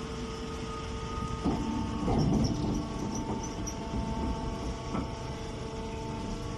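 Baling press machine running: a steady mechanical hum made of several tones, with a few knocks about one and a half, two and five seconds in.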